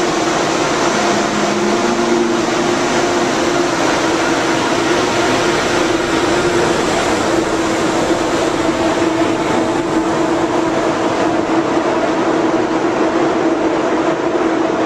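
Deutsche Bahn ICE electric high-speed train moving slowly along the platform: a loud, steady rush of electrical equipment and cooling fans with a held humming tone, and a second, higher tone that comes in about halfway through.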